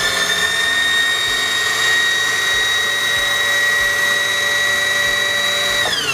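Singer 4411 Heavy Duty sewing machine running at full speed to wind a bobbin: a loud, steady high whine that begins to wind down in pitch near the end.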